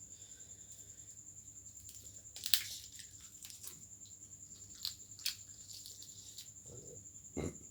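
Close-up eating sounds: a person chewing and crunching food, with one sharp crunch about two and a half seconds in, a few smaller clicks after it, and a dull knock near the end.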